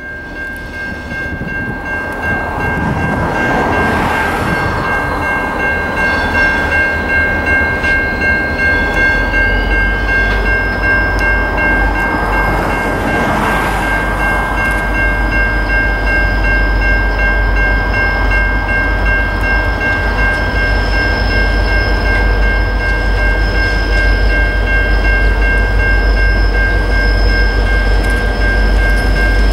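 Level crossing warning bells ringing steadily while the diesel rumble of an approaching freight train's locomotives grows louder, swelling from about a third of the way in.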